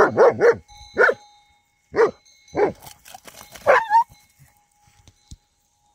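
Dogs barking: a quick burst of three barks, then single barks about every second, the last one drawn out into a wavering yelp about four seconds in.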